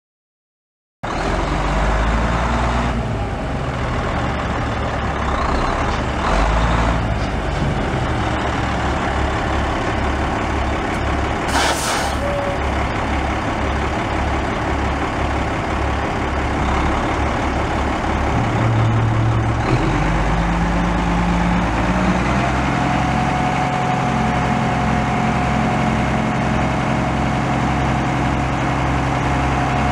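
1997 Freightliner FLD112 dump truck's Caterpillar 10.3-litre inline-six diesel idling with a steady throb, with a short hiss of air about a third of the way in. About two-thirds of the way through, the engine speeds up as the PTO-driven hoist is engaged. Soon after, a steady whine joins it as the dump bed rises.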